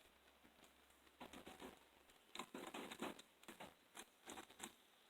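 Faint, scattered plastic clicks and scrapes as a string trimmer's plastic engine cover is worked loose and pulled off its crankcase.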